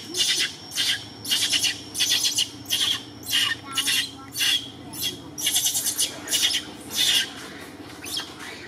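Young macaque screaming in distress, a string of short, shrill squeals about twice a second that fade out near the end.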